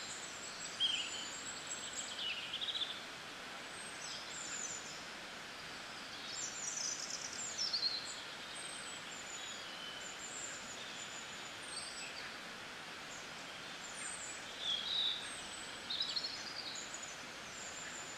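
Birds chirping and whistling in short, scattered calls over a steady hiss of falling rain.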